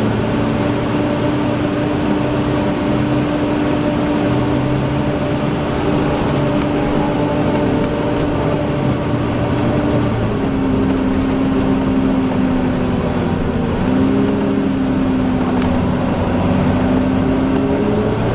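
Volvo double-decker bus with a Wright Eclipse Gemini body running under way, its engine and drivetrain giving a loud, steady whine (the 'hoover' sound). The whine drops a little in pitch about ten seconds in and shifts again a few seconds later as the bus's speed or gear changes.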